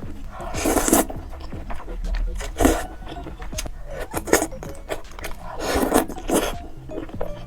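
Close-miked eating: food being chewed and crunched, with irregular crunches roughly once a second.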